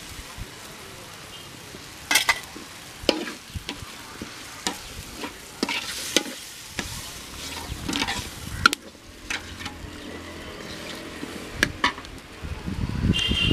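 Steel ladle scraping and clinking against the sides of a metal cooking pot as a thick dry fish curry is stirred, in irregular strokes over a steady sizzle of the curry frying on the fire.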